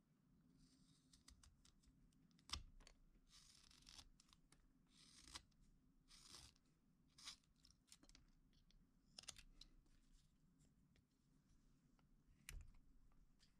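Carving knife paring shavings from a small wooden figure: a series of faint slicing scrapes, each lasting about half a second to a second, with sharp clicks about two and a half seconds in and again near the end.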